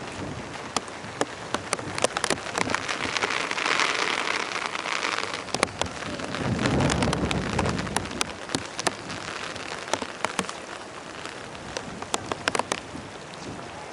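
Heavy rain falling, with sharp drops clicking on a near surface and a heavier spell a few seconds in. A low rumble of thunder about halfway through.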